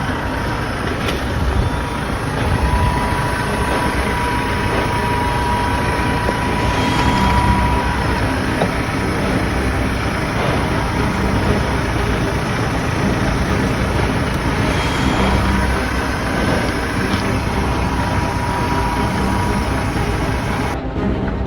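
Massey Ferguson MF5480 tractor's diesel engine running steadily.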